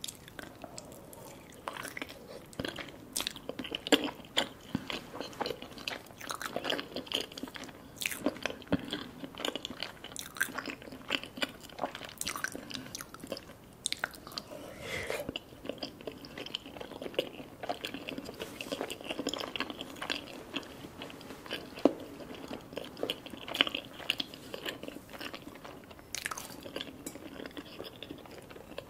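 A person chewing and biting a soft, syrup-soaked gulab jamun, with a steady run of small wet mouth clicks and chewing noises.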